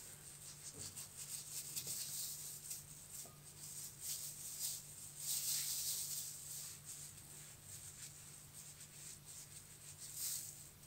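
Knife slicing and scraping pieces off a hand-held guava, a run of faint, irregular scratchy cuts with the rustle of plastic food gloves, over a steady low hum.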